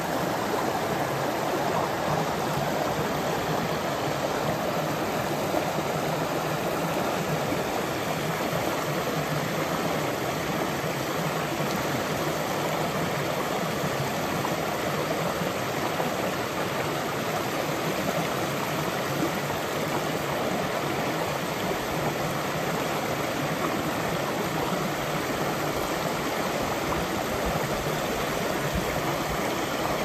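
Shallow rocky stream running over small cascades: a steady, even wash of water.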